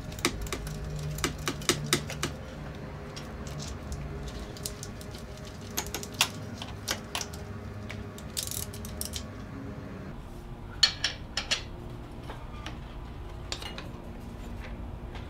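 Hand tools clicking and clinking against metal as an alternator is bolted into an engine bay. The clicks are sharp and irregular, in short clusters near the start, in the middle and about three-quarters through.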